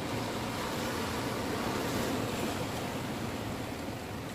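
Sea surf washing over shoreline rocks, a steady rush that swells slightly about halfway through.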